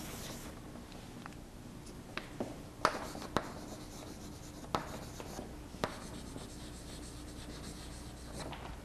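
Chalk writing on a chalkboard: a scatter of sharp taps and faint scratching as words are written out.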